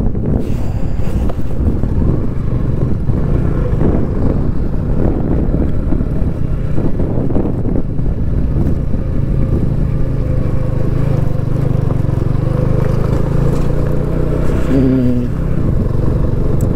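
Motorcycle engine running while riding, with wind noise on the microphone over a rough mountain road. The engine note settles to a steadier hum in the second half, and a brief pitched sound falls in pitch near the end.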